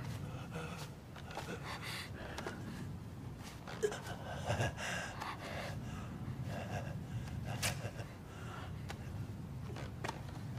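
A person's strained gasping and breathing over a steady low rumble, with a few soft rustles and a faint click.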